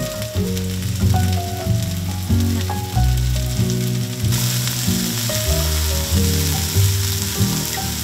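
Cheese-coated salmon pieces and shimeji mushrooms sizzling in oil in a frying pan, the sizzle growing louder about halfway through. Background music with low held notes plays throughout.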